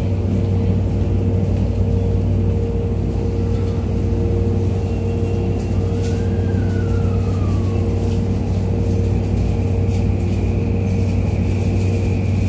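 Inside a Tokyu 2020 series electric train car pulling out of a subway station: a steady hum from the car, then the traction motors' whine rising and falling about halfway through as the train starts, settling into a steady high whine near the end as it picks up speed.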